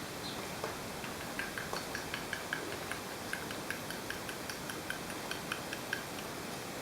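Budgie making a run of short clicking chirps, roughly three a second, over a faint steady hiss.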